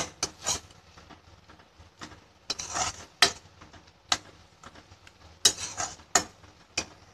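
Metal spatula scraping and clinking against a kadhai while stirring a thick onion-tomato masala as it cooks, in irregular strokes with a longer scrape about three seconds in.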